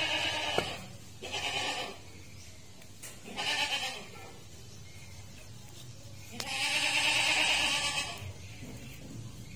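A goat bleating several times: a call fading out at the start, two short calls, then a longer one about six seconds in. A few sharp knocks come from a cleaver chopping meat on a wooden stump.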